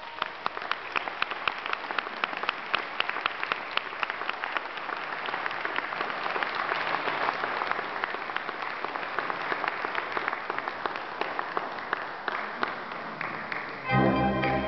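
Audience applauding, the clapping thinning out near the end. Then a concert band of clarinets and brass comes in with loud sustained chords.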